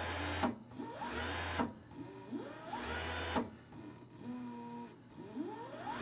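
Yuma 550 W (3/4 hp) AC servo sewing-machine motor running without load as its speed control is worked: it spins up with a rising whine and winds back down several times, with a low hum in between.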